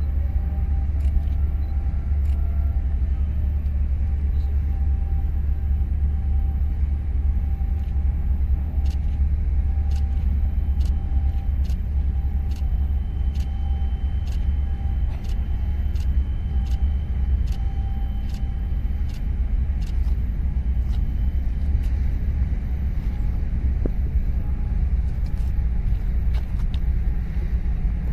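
Steady low rumble of outdoor harbour ambience, with a faint steady hum above it and scattered faint ticks.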